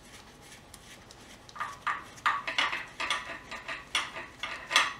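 Metal dipstick tube and its bracket clinking against the engine's front cover as they are worked into place on a VK45DE V8. It comes as a run of quick, irregular light clicks starting about a second and a half in.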